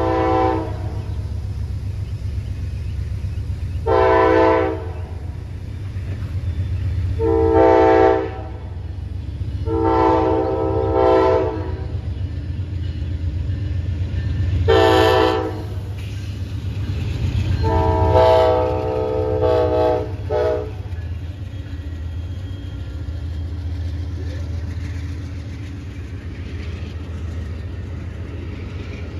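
Amtrak Auto-Train's locomotive horn blowing a series of blasts for a road crossing, about six in all: several long ones, a short one, then the longest. A steady low rumble of the train runs underneath and carries on as the passenger cars roll past.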